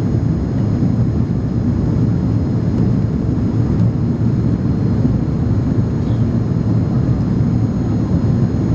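Monarch Airbus A300 jet airliner: a steady, unbroken low rumble of its engines and airflow, with a faint high whine.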